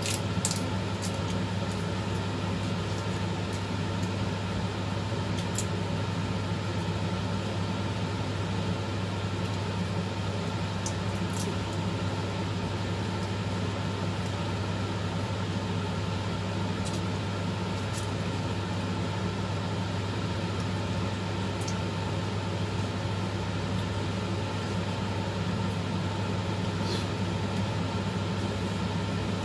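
Steady low machine hum, as from an appliance motor or fan, unchanging throughout, with a few faint ticks scattered through it.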